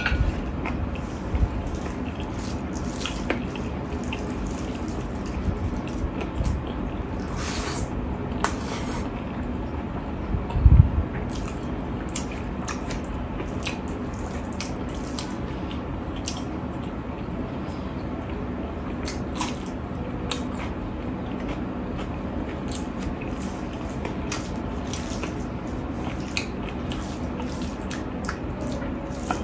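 Wet eating sounds: fingers squishing and mixing rice with dal and curry on a steel plate, with chewing and lip smacks as many short clicks over a steady hiss. One low thump comes about eleven seconds in.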